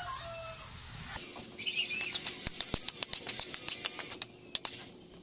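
A metal spatula clicks and scrapes against a metal wok in a quick run of about five strikes a second as sliced bitter gourd and corned beef are stir-fried, with a sizzle under it.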